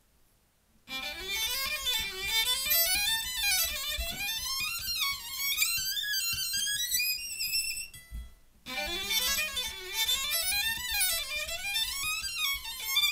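Solo violin played close up, with fast runs sweeping up and down in pitch and climbing higher. It starts about a second in, breaks off briefly about two-thirds through, then carries on with the same kind of runs.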